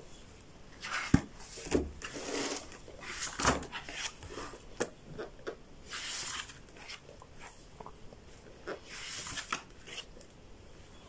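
A hardcover picture book being opened by hand and its pages turned: paper rustling and sliding on and off, with a few light knocks as the cover is laid open.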